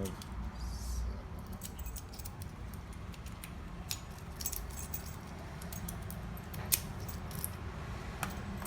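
Small metallic clicks and ticks of lock pins and cylinder parts being handled while a storefront mortise cylinder is rekeyed, with one sharper click about two-thirds of the way in.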